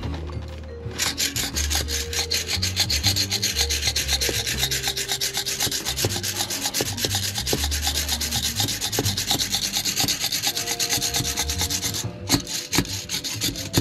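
Rubber window gasket being worked over the edge of a truck's window glass, a fast, even scraping rub that runs for about eleven seconds and stops, followed by a few light knocks.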